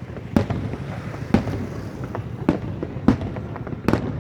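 Fireworks bursting, about five sharp bangs at uneven intervals over a low steady background rumble.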